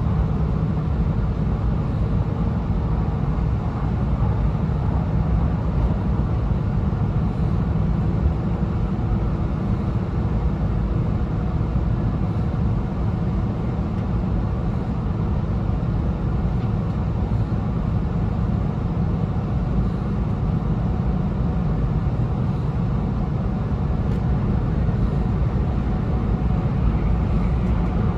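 Steady running noise of an E2 series Shinkansen heard from inside the passenger cabin: a deep, even rumble of wheels on rail with a faint steady hum over it.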